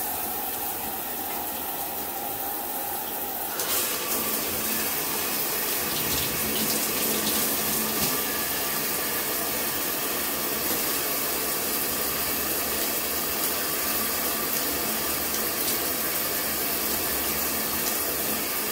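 Water spraying hard from a Kohler Ajuste 3-in-1 handheld shower head with its flow restrictor removed, hitting the tile walls of the shower in a steady rush. The spray grows a little louder and fuller about three and a half seconds in.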